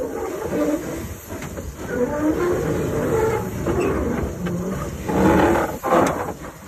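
A 1935 Henschel narrow-gauge, coal-fired steam tank locomotive running slowly, with steam hissing from around its cylinders. The sound grows louder in bursts about five seconds in.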